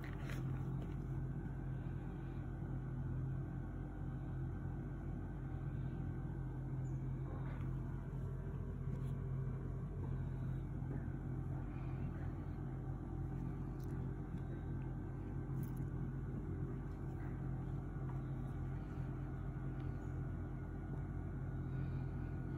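Steady low mechanical hum that holds one even pitch with fainter overtones above it.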